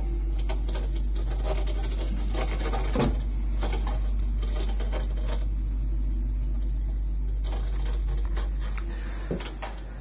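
Steady low hum of a running Nibe air-to-water heat pump system's indoor equipment while it heats the hot water store, with faint scattered clicks and a single sharp knock about three seconds in.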